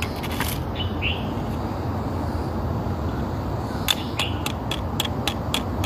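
Steady low rumble of wind and handling noise on a hiker's camera, with a quick run of sharp clicks about four seconds in and a couple of short high chirps near the start.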